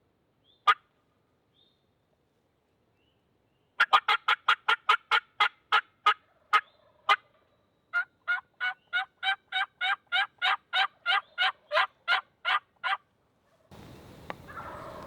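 Turkey yelping: a fast run of sharp notes about four seconds in that slows and breaks off, then a steady series of about twenty even yelps, roughly three a second. Near the end a steady hiss of noise comes in.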